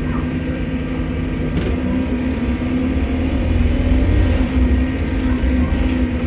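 Bus engine running under way, heard from inside the bus: a steady drone with a low rumble that grows a little louder about halfway through. At the same point a faint high whistle rises and falls, the noise the title puts down to a leaking turbo.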